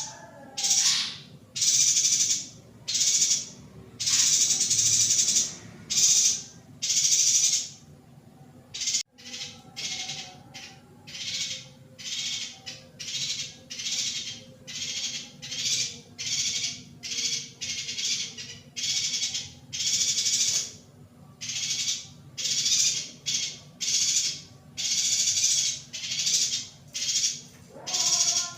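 Recorded calls of a female yuhina: harsh, buzzy notes repeated about once a second, some drawn out to nearly a second. After a brief lull about a third of the way in, the notes come shorter, softer and quicker.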